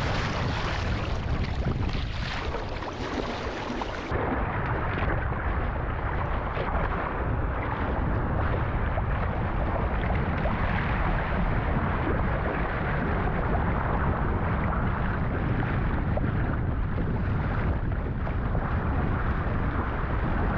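Wind rumbling on the microphone over the steady wash of ocean water around a sea kayak in swells. The sound turns duller about four seconds in.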